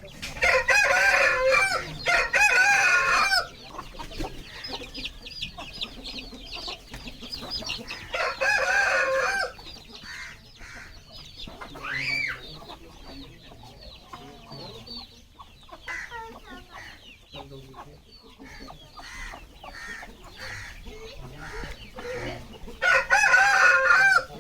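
Aseel rooster crowing: a long crow near the start, another about eight seconds in, and a third starting near the end. Between the crows, hens cluck and chicks peep in a high, busy chatter.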